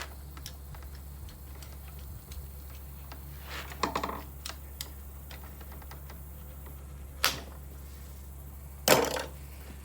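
Light clicks and knocks of hand tools being handled, with three louder knocks about four, seven and nine seconds in, over a steady low hum.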